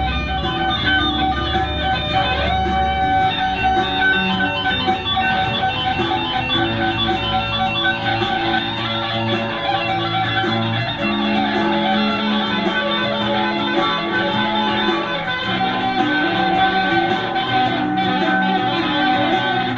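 Instrumental music with guitar-like plucked notes.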